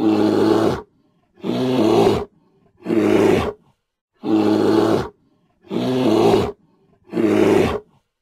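Grizzly bear roaring: six short roars, each under a second long, coming about every second and a half with silence between them.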